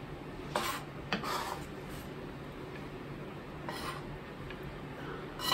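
A kitchen knife scraping and tapping against a plastic cutting board and scallop shells in three or four short strokes, pushing minced red onion off the blade. A faint steady low hum lies underneath.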